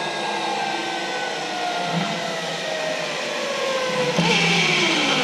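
Zipline trolley pulleys running along the steel cable, a whine whose pitch falls steadily as the rider slows. A louder rushing hiss joins about four seconds in.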